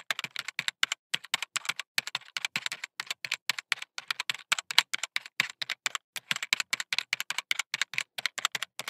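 Computer-keyboard typing sound effect: a quick, unbroken run of key clicks, several per second, accompanying text being typed onto the screen.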